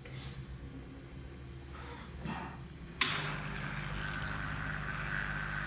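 Gloria Babochka industrial walnut-cracking machine running, with a steady hum under a high whine. About three seconds in there is a sharp click, and a louder, deeper motor hum joins as the rotation and feed drive starts.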